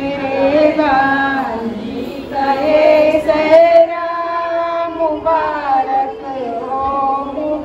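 Female voice singing a traditional sehra song at a wedding ritual, drawing out long notes that bend and slide in pitch.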